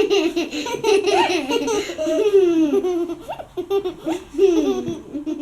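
Young girls laughing, in repeated high-pitched peals of giggles.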